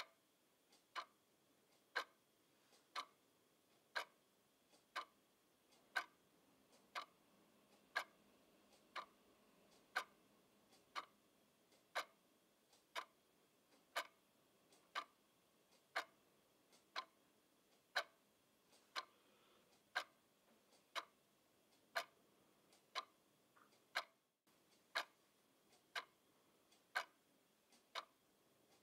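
Quartz twin-bell alarm clock ticking steadily, one sharp tick a second.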